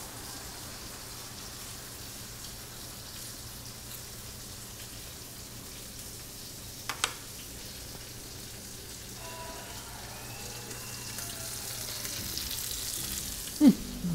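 Steady, quiet sizzling hiss of food frying in a pan, with two light clicks about seven seconds in.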